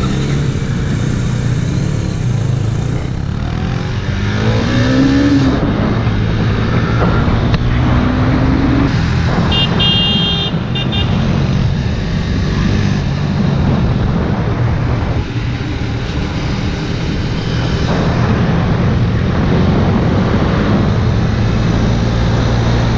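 Motorcycle engine under way, its pitch rising through the gears several times as it accelerates, over steady wind and road noise. A brief pulsed high-pitched beep sounds about ten seconds in.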